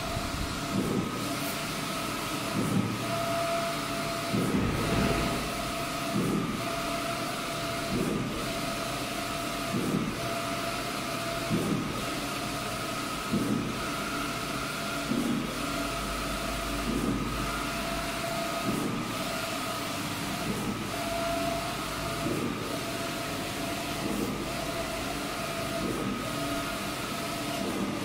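Wide-format inkjet banner printer running, its print-head carriage shuttling across the flex with a steady motor whine and one swishing pass about every two seconds.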